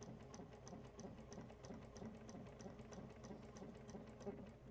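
Juki 1541S walking-foot industrial sewing machine stitching at its slowest, its manual servo motor feathered at the 350 RPM setting: faint, even ticking of the needle and feed at about three stitches a second.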